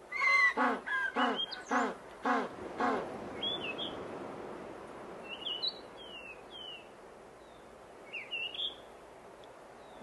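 African penguins braying: a run of about six loud, harsh honking notes, roughly two a second, in the first three seconds. After that, scattered short, high, downward-sliding bird calls over a soft rushing background.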